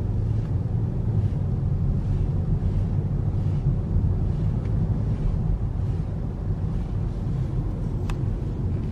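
Car driving along: a steady low rumble of road and wind noise heard from inside the cabin.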